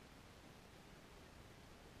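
Near silence: faint, steady background hiss.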